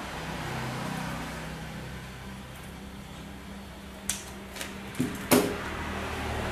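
Scissors snipping through a sheet of black vinyl upholstery material, giving a few short sharp clicks about four seconds in; the loudest click comes about five seconds in as the scissors are set down on the sheet. A steady low hum runs underneath.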